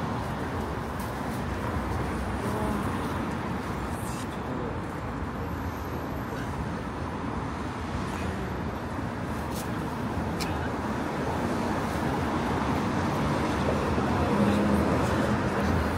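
City street traffic: a steady hum of passing cars and buses, growing a little louder near the end.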